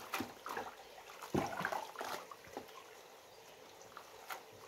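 Water splashing and trickling in a plastic basin as squash blossoms are swished and squeezed out by hand, with short splashes and clicks that are busiest in the first two seconds and one sharp click near the end.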